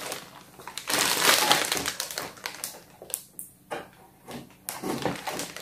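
Plastic packaging crinkling and rustling as it is handled, with scissors snipping through cardboard.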